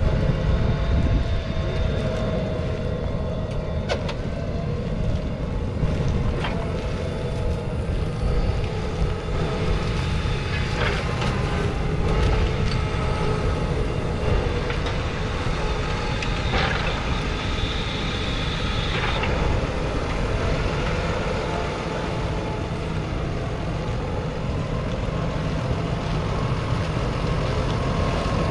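McCormick X7.621's 6.7-litre six-cylinder diesel engine running steadily as the tractor turns with and then pulls a reversible plough, with a few sharp knocks along the way.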